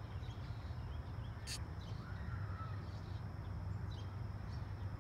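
Outdoor ambience: a steady low rumble with faint scattered bird chirps. A short sharp high sound comes about a second and a half in, and a faint thin call slides slightly downward a little after two seconds.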